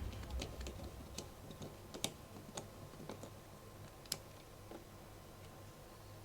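Scattered small, sharp clicks and taps, about nine or ten at uneven intervals, from a Nokia 1100's small plastic and metal parts and tools being handled during reassembly.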